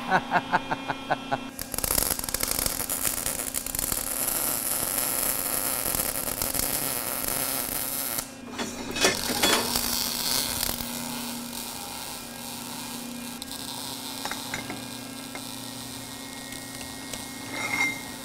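MIG welding arc crackling and hissing on steel. It stutters at the start, runs steadily for several seconds, stops briefly near the middle, then carries on more quietly, over a steady low hum.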